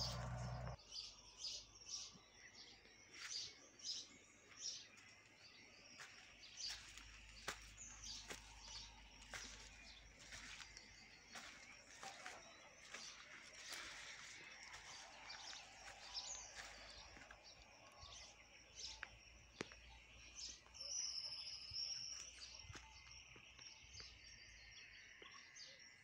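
Faint birdsong outdoors: birds chirping and calling over and over in short notes, with a steady high-pitched hiss underneath. A louder call comes about three quarters of the way through.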